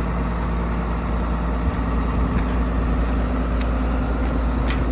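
Caterpillar 320CL excavator's diesel engine running steadily. A few faint clicks sit over the drone.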